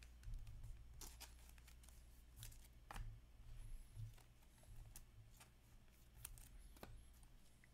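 Faint handling of trading cards and packaging: soft rustling, light taps and a few sharp clicks as cards are shuffled and slipped into plastic holders, over a low steady hum.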